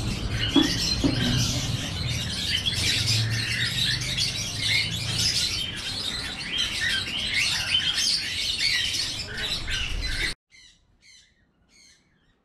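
A dense chorus of aviary birds, cockatiels among them, chirping and squawking over one another. It cuts off abruptly about ten seconds in, leaving only a few faint chirps.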